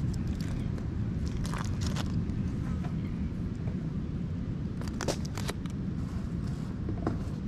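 Aluminium foil crinkling as it is handled around a cooked fish, a few short clusters of sharp crackles over a steady low rumble.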